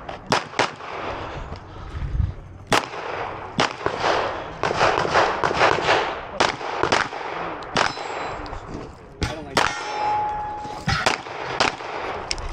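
Canik Rival 9mm pistol firing a string of shots in uneven groups, fired close to the microphone. About two-thirds of the way through, one shot is followed by a ringing tone of about a second.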